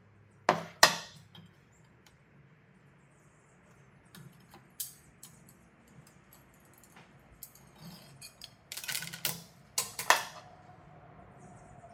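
Hard plastic filter parts and a hacksaw being handled on a tabletop: two sharp knocks about half a second in as the cut-out disc is lifted away, scattered light ticks, then a louder cluster of knocks and scrapes near the end.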